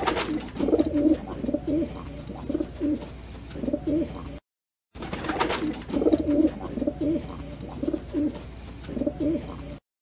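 Pigeon cooing: a run of low, repeated coos after a sharp noise at the start. The same short recording plays twice, with a half-second break of silence about four and a half seconds in.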